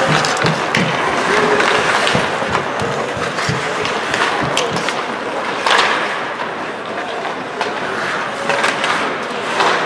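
Ice hockey play: skates carving and scraping on the ice, with sticks and puck clacking. A louder hit or scrape comes about six seconds in.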